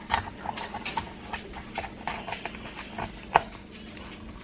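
Light clicks and knocks of things being handled in a kitchen, about two or three a second, with one sharper knock about three and a half seconds in, over a faint steady hum.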